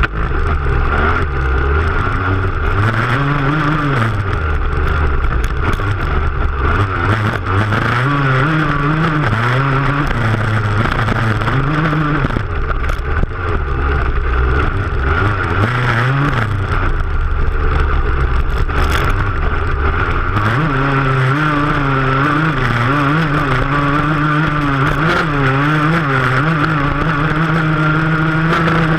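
Dirt bike engine at full racing load, heard close up from the rear fender, revving up and falling back again and again as the rider accelerates and shifts across rough ground.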